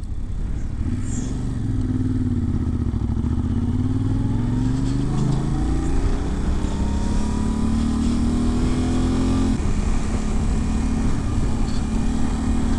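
Yamaha Ténéré 700's parallel-twin engine pulling the bike along, its pitch dipping and then climbing steadily before dropping suddenly at a gear change about ten seconds in.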